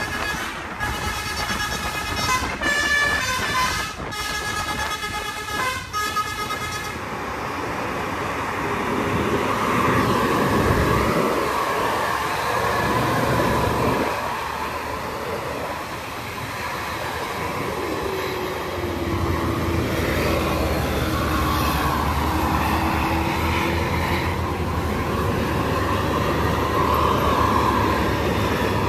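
Bus multi-tone horn sounding a quick series of blasts on changing notes for about the first seven seconds, then a heavy bus engine running under load, its pitch dipping and rising again around two-thirds of the way through.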